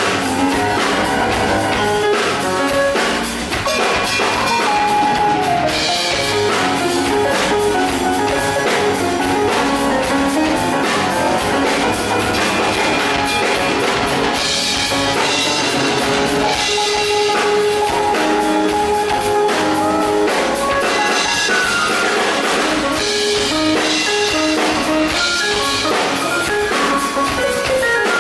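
Live band music: a Yamaha S90 ES stage piano played with drums keeping a steady beat, in a jazzy pop song.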